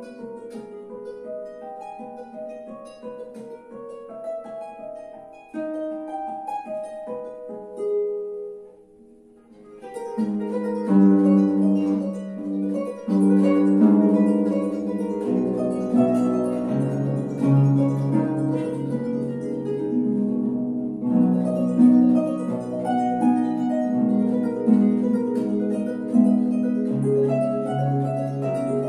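Solo concert pedal harp played by hand. Gentle single-line plucked notes, a short pause about nine seconds in, then a louder, fuller passage of chords with low bass notes.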